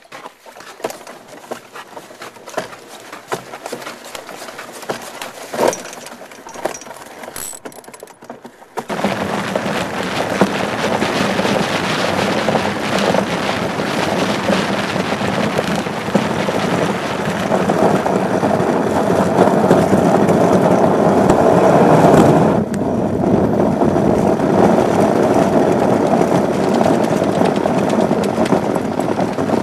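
Steel iceboat runner sliding over ice. At first it is a faint scrape with scattered ticks. About a third of the way in it turns abruptly into a loud, steady, rushing grind, which eases slightly about three quarters of the way through.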